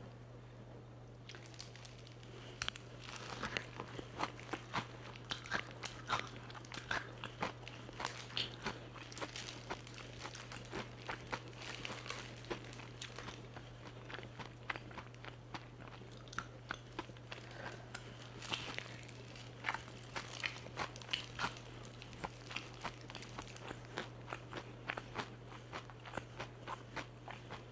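Close-up crunching and chewing of crispy-coated fried chicken, with many sharp crackly bites starting about two seconds in, over a steady low hum.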